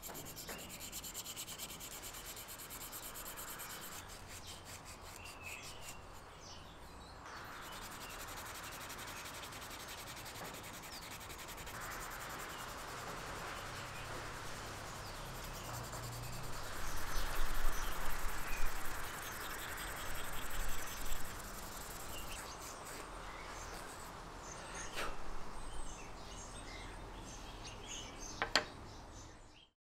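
Sandpaper rubbing by hand over a carved wooden spoon, a steady scratchy sound that swells and fades with the strokes. It gets louder for a few seconds a little past halfway, and there is a sharp tick near the end.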